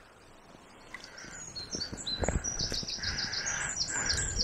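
A songbird singing: quick runs of short, high chirping notes starting about a second in and carrying on to the end.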